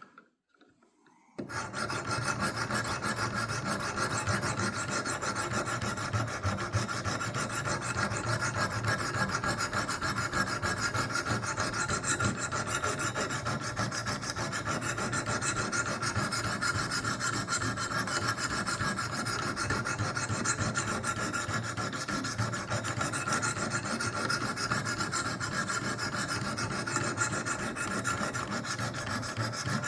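Near silence for about a second and a half, then continuous rapid scraping strokes of the Wicked Edge WE60's abrasive stones on the steel edge of a dull butter knife. This is the edge still being ground down to the apex, raising a burr along its length.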